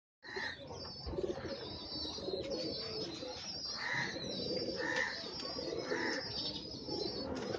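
Domestic pigeons cooing, a low wavering murmur that keeps going, over steady high chirping from other birds.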